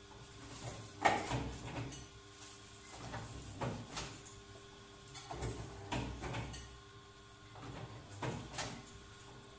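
Double-die paper plate machine running: a steady motor hum with a clunk and sliding clatter every two to three seconds as the dies press and release the paper plates.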